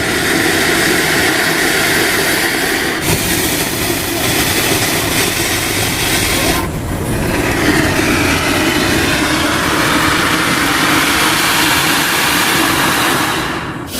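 Diwali firecracker burning with a loud, continuous hissing rush and no bangs. It dips briefly about three and seven seconds in and fades near the end.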